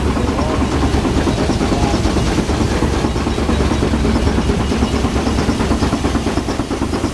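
65-horsepower Case steam traction engine running steadily, purring along with a fast, even clatter: a good-running engine.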